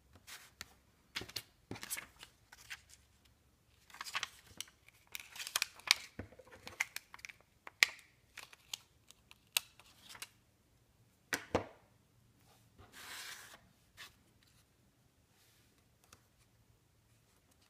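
Hands handling a corrugated-cardboard card on a cutting mat and pressing down a stick-on rhinestone border: scattered clicks, taps and paper rustles, with a short rustle about 13 seconds in.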